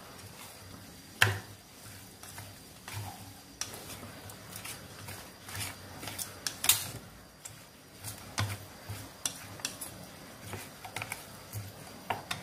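Chopsticks stirring and tossing chopped meat in a pot to work in the seasonings, with irregular clicks and knocks against the pot; the sharpest knocks come about a second in and midway.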